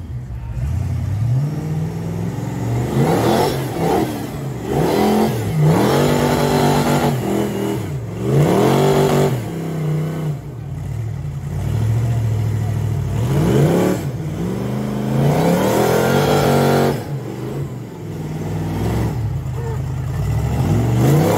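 Engine of a tube-frame off-road trial buggy revving hard in repeated bursts, the pitch climbing and dropping every second or two as it works under load up a muddy, rocky slope.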